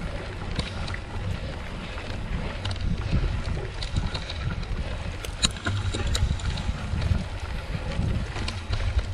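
Mountain bike ride over a rough, overgrown trail: an uneven low rumble of wind on the microphone and the bike jolting over the ground, with a few sharp ticks and rattles a little past halfway.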